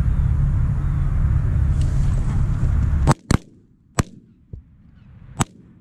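Shotguns firing at flying Canada geese: two shots close together about three seconds in, then one a second later and a last, fainter one near the end, as a goose is hit and falls. Before the shots, a steady low rumble of wind on the microphone.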